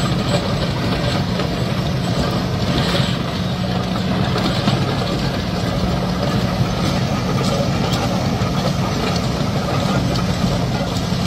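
Chain trencher working a trench: its diesel engine runs steadily under load while the digging chain cuts. A dense, even machine noise with a constant low engine hum.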